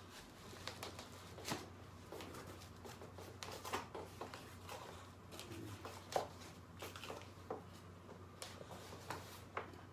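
Faint scattered clicks, taps and rustles of a Kingsong 16X electric unicycle being handled by its pull-up handle and rubber-covered shell, over a low steady hum.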